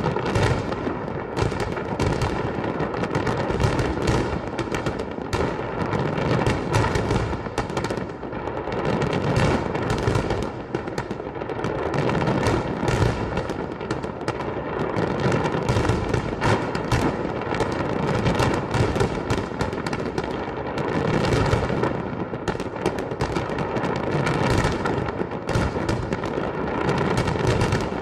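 Fireworks display: a dense, continuous barrage of bangs and crackling, shot after shot with no pause.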